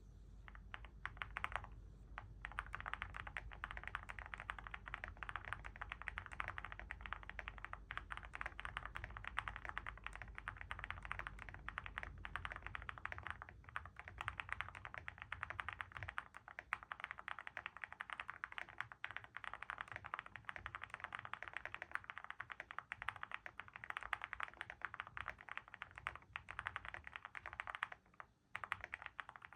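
Continuous fast typing on a Monsgeek M1 V5 mechanical keyboard fitted with hand-lubed Akko Piano V3 Pro switches, PBT MOA-profile keycaps, tape mod, polyfill and modded spacebar stabilisers. There are brief pauses in the keystrokes near the start and near the end.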